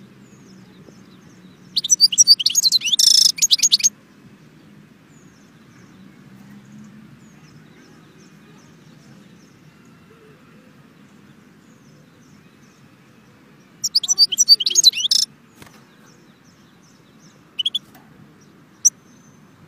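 European goldfinch singing in a cage: two short bursts of rapid twittering song, the second about halfway through, then a couple of single call notes near the end, over a faint low hum.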